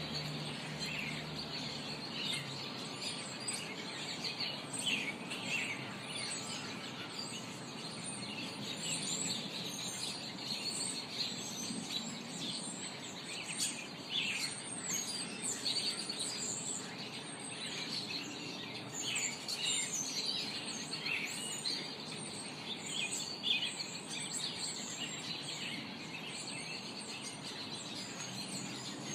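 Several garden birds singing and chirping, with many short overlapping calls and trills throughout, over steady background noise.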